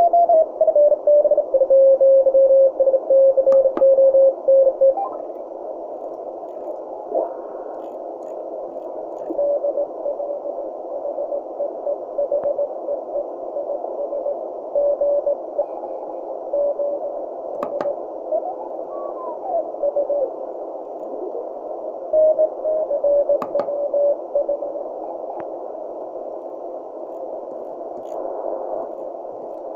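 Shortwave receiver audio tuned across the 20-meter CW band through a narrow filter: steady band hiss with Morse code signals heard as keyed beat tones, loudest in the first five seconds. As the dial is turned the tones slide in pitch and new signals drift in, with a few sharp clicks.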